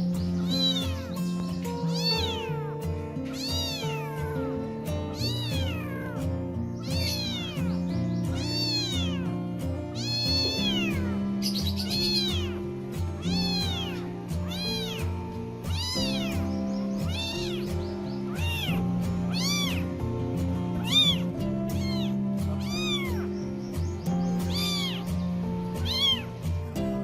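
Kittens mewing over and over, high-pitched calls that rise and fall, about one a second, over background music.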